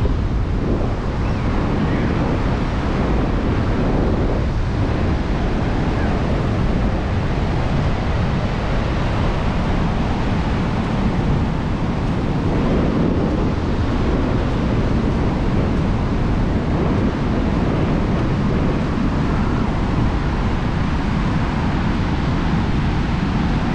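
Sea surf washing onto a sandy beach, mixed with wind buffeting the microphone; a steady noise with no distinct events.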